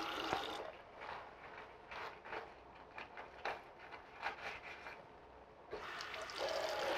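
A cigarette lighter flicked over and over, a run of short clicks and rasps from the spark wheel, then a steady hiss from near the end.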